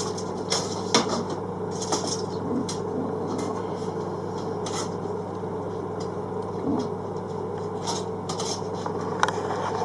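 A length of light-fitting rail being handled and slid about: irregular scrapes and light clicks, over a steady low hum.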